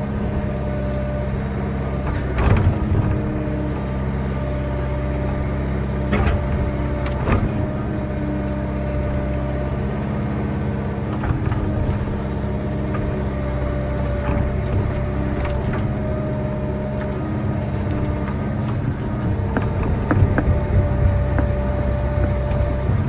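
Earthmoving machine's diesel engine running steadily while it grades, with a few short clanks and knocks from the machine working.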